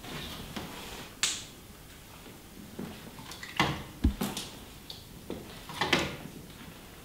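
Handling sounds at a watercolour painter's worktable: a handful of short sharp clicks and knocks, one with a dull low thump, as brushes and tools are picked up and set down, with faint brushing between them.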